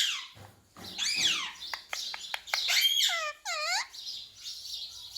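Indian ringneck parakeet calling in short, high, arched chirps, with a quick run of about six sharp clicks between the calls.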